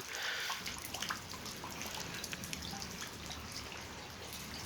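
Rain falling and dripping, with many small scattered drops ticking against a steady wash.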